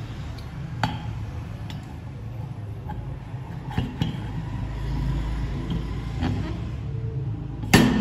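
Steel swing arm of a homemade motor cutter being turned on its upright post: a few light metal clicks and knocks, then one louder metal clunk near the end as the arm is set down. A steady low hum runs underneath.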